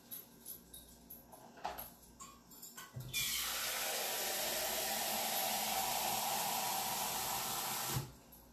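Water running from a kitchen tap: a few light clicks and knocks, then the tap is turned on about three seconds in, runs steadily for about five seconds and is shut off abruptly.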